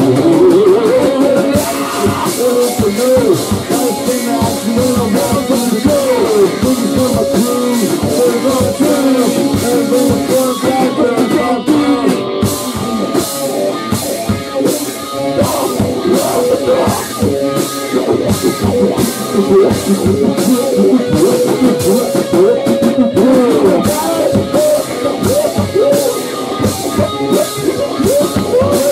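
Rock music: a band playing, with drum kit and electric guitar keeping a steady driving beat.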